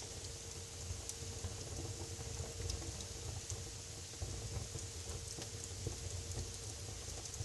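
Wood fire burning in a fireplace: scattered crackles and pops over a steady low rumble and hiss.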